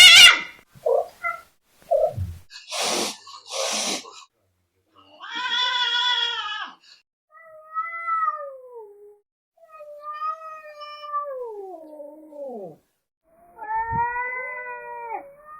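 Angry cat hissing in a few short bursts, then yowling: four long, drawn-out yowls that waver in pitch and slide down at their ends.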